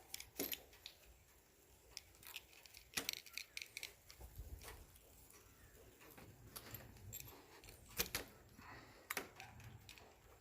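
Deadbolt hardware being handled: small metal parts clicking and rattling in irregular, scattered clicks, with short clusters near the start, around three to four seconds in, and a sharp click about eight seconds in.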